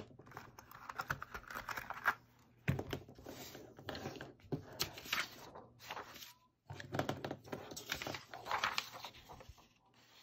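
Sheet of printer paper rustling and sliding on a cutting mat, with light clicks as pencils are set down; faint, uneven bursts of handling noise broken by short moments of dead silence.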